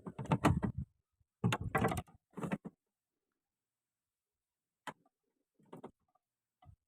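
Irregular knocks and rustles of handling, in short clusters in the first three seconds, then a few fainter single knocks.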